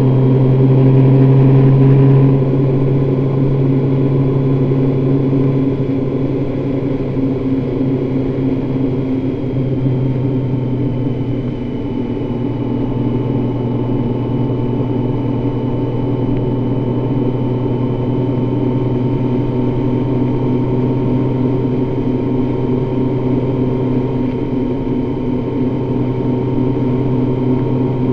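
Honda Gold Wing motorcycle running at a steady cruise on the open road: a continuous engine hum over road and wind noise, a little louder in the first two seconds.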